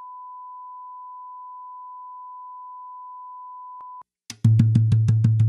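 Steady 1 kHz line-up test tone accompanying colour bars, cutting off about four seconds in. Half a second later music starts with a fast, even drumbeat.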